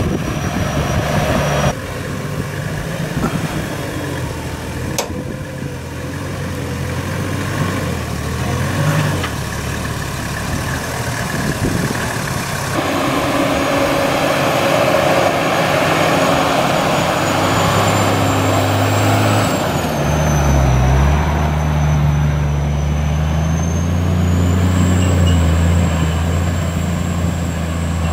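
Toyota Land Cruiser HZJ105's 4.2-litre six-cylinder diesel engine running under load as the truck crawls over rutted, steep dirt track, its revs dipping and rising near the end. The engine sound changes abruptly twice.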